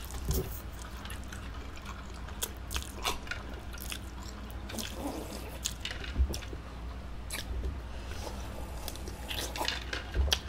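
Close-up eating sounds: scattered soft, wet clicks and smacks of chewing chow mein noodles, with slurping and sips from a cup.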